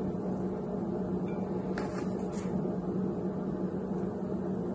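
Steady low machine hum, with a few soft taps about two seconds in as apple slices are set onto spinach in a bowl.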